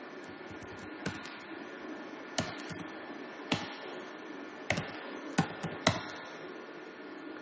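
Computer keyboard keystrokes typed slowly, about seven sharp clicks at uneven intervals, over a steady low hiss.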